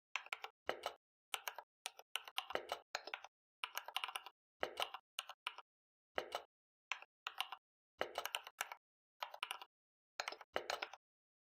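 Computer keyboard typing in short irregular runs of keystrokes, with dead silence between the runs.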